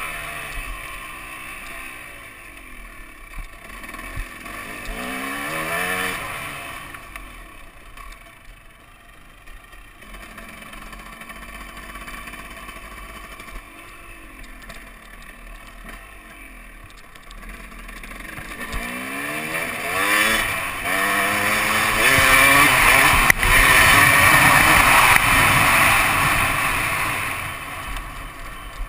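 KTM 250 SX two-stroke dirt bike engine revving and accelerating, its pitch climbing again and again as it pulls. It eases off through the middle, then pulls hardest and loudest near the end before backing off.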